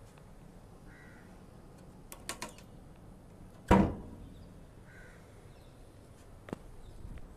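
One sharp, loud knock on an old wooden stair tread a little before the middle, with a few lighter clicks shortly before it.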